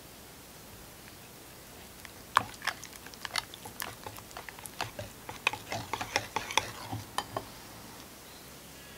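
Wire balloon whisk beating a thick mascarpone cream in a glass bowl, its wires clicking and tapping against the glass in an irregular run of sharp ticks. The ticks start about two seconds in and stop about two seconds before the end.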